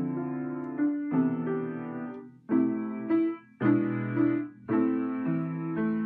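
Piano music: slow chords struck about once a second, each left to ring before the next.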